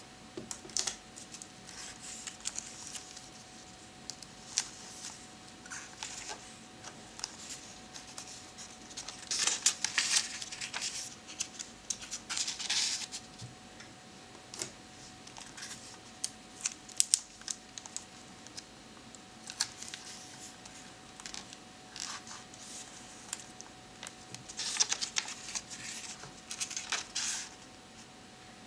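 Fingers handling the paper pages of a photo book: small clicks and scratches on the paper, with a few rustling swishes about a third of the way in and again near the end. A faint steady hum runs underneath.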